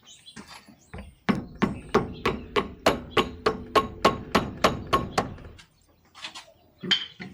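A hammer striking a shock absorber about fifteen times in quick succession, a little over three blows a second, to drive it through its mount, with a ringing note under each blow. A few lighter knocks come before and after the run of blows.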